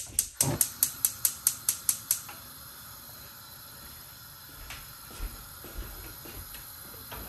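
Gas stove's spark igniter clicking rapidly, about eleven clicks in two seconds, then the lit burner running with a steady hiss.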